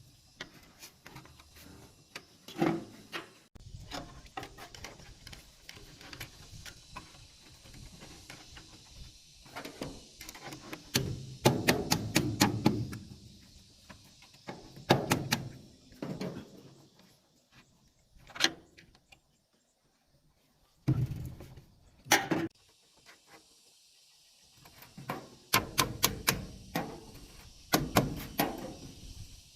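Irregular sharp knocks and clatter from hand work with bamboo, some coming in quick runs of several strikes, with quieter gaps between them.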